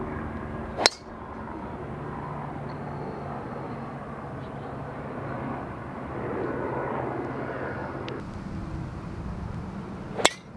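Two golf tee shots, each a single sharp crack of a driver striking the ball, the first about a second in and the second near the end. A steady low engine drone runs beneath, swelling a little midway.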